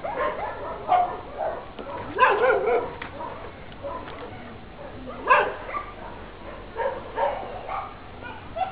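Several shelter dogs barking and yipping in short, scattered calls at different pitches, the loudest about two and five seconds in.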